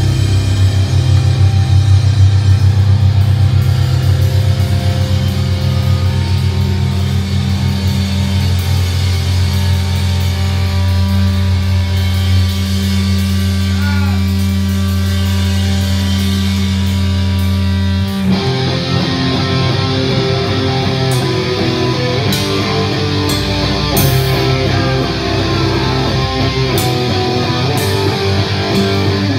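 Live punk band playing loud distorted electric guitar and bass over a drum kit. A held, droning low chord rings for the first eighteen seconds or so, then the band breaks abruptly into a faster riff with repeated cymbal crashes.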